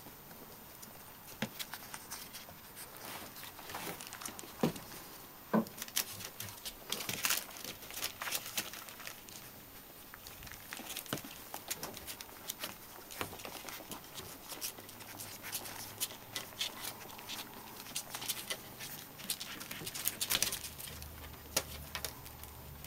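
Young Bedlington whippet puppies nursing and wriggling against their mother in a whelping box: scattered small clicks and smacks with soft rustling of the bedding and newspaper, and one brief squeak about five and a half seconds in.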